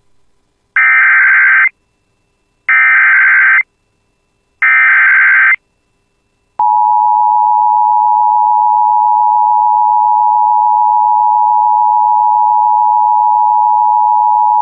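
Emergency Alert System header for a severe thunderstorm warning: three short, identical bursts of SAME digital data tones, about a second each. About six and a half seconds in, the steady two-tone EAS attention signal begins.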